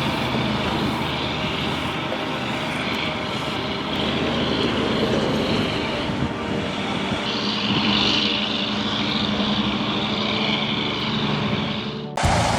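A heavy machine's engine running steadily, a dense mechanical din over a low, even hum. Shortly before the end the sound cuts abruptly to a different one.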